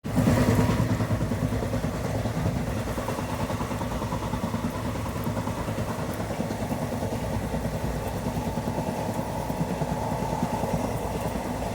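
Passenger train running along the track: a steady low rumble with a fast, even rattle.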